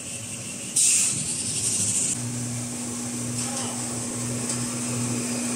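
Kitchen towel paper rewinding line running with a steady low machine hum. A sharp hiss starts suddenly about a second in and lasts about a second. A steady humming tone sets in about two seconds in and holds.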